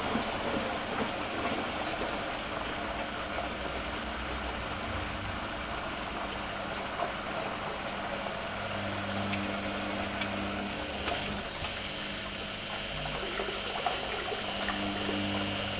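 Privileg 370 S washing machine with water running in it, and a low electric hum that comes in about eight and a half seconds in, stops about two seconds later, and starts again near the end, from a pump or valve switching on.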